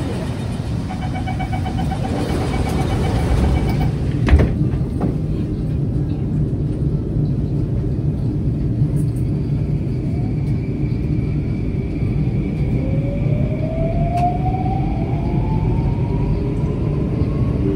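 Interior of a Bombardier Movia C951 metro train at a station: a steady low rumble, a door chime beeping for about three seconds, then a single thud as the doors shut. About two-thirds of the way through, the traction motors start a rising whine as the train pulls away.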